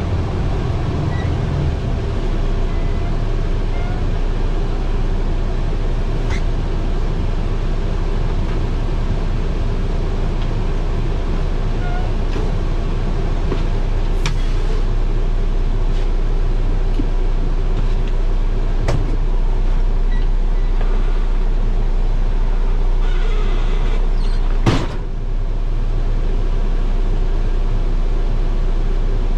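Freightliner dump truck's diesel engine idling steadily, heard from inside the cab. A few short clicks come through it, with one louder sharp knock near the end.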